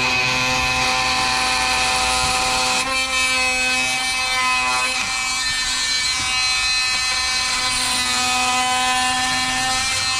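An electric power tool running steadily, its motor giving a continuous whine with a slight change in pitch about three and again about five seconds in.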